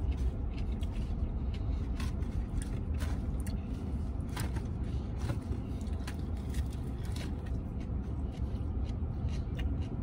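A fork clicking and scraping against a takeout salad container, with chewing, in short scattered clicks over a steady low hum inside a vehicle cabin.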